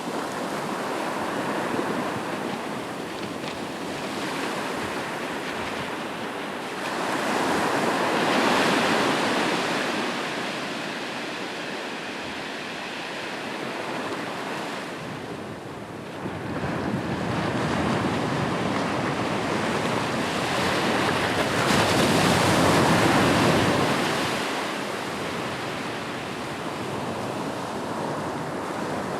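Ocean waves breaking and washing up a shoreline, a steady surf noise that swells louder twice as bigger waves come in, once about a quarter of the way in and again for several seconds past the middle.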